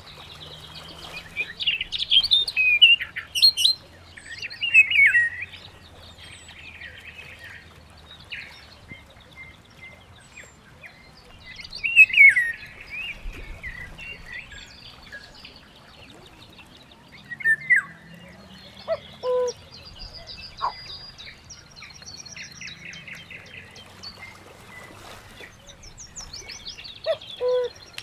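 Several birds chirping and calling: bursts of quick, high chirps and whistled glides, busiest in the first few seconds and again about twelve seconds in, with a few short, lower-pitched calls later on.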